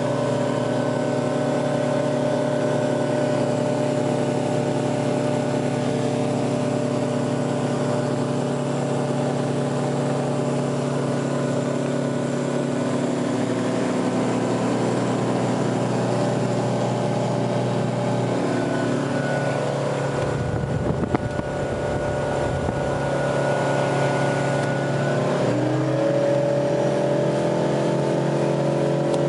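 Engine of a Reinell 200 LSE runabout running steadily at high revs under way, with water and hull noise. About twenty seconds in there are a few seconds of low rumbling with a bump. About twenty-six seconds in, the engine note rises as the revs go up.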